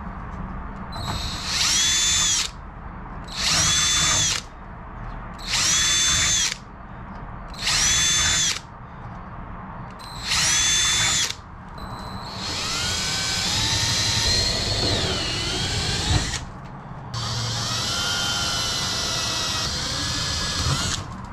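Cordless drill opening up paint-clogged rivet holes in a painted wing spar. It runs in five short bursts about two seconds apart, each whine climbing quickly to speed, then in two longer runs of about four seconds each.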